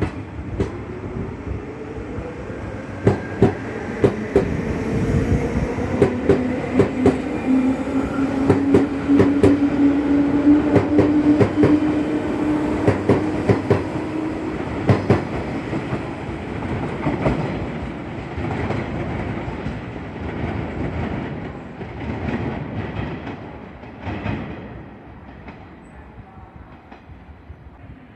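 Electric commuter train pulling away and picking up speed. Its motor whine rises steadily in pitch, and the wheels click rhythmically over the rail joints. The sound fades as the train moves off near the end.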